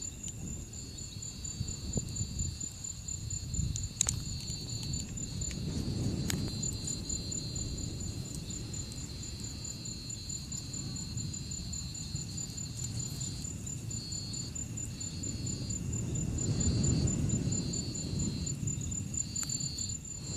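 Crickets chirping in a steady night chorus: one high, fast pulsing trill, and a lower song that starts and stops in phrases. Beneath them, a low rushing rumble swells twice.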